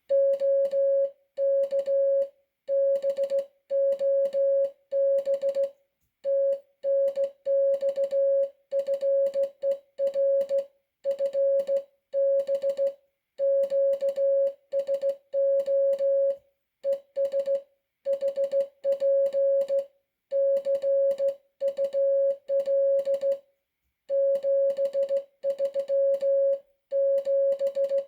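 Morse code sent on a NATO Morse key as a steady tone of about 600 Hz, keyed on and off in dots and dashes, with longer pauses between groups.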